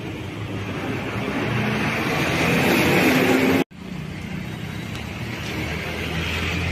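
Engine and road noise of a moving vehicle, with a steady low hum, growing gradually louder. It cuts off abruptly for a split second just past halfway, then carries on and builds again.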